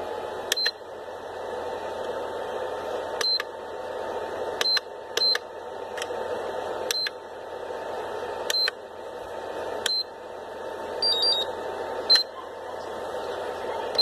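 Venom LiPo charger beeping once with each button press: about nine short high beeps spaced a second and a half to two seconds apart, and a quick run of three beeps at a different pitch about eleven seconds in, over a steady hum. The keypresses are setting up a charge on a LiPo battery.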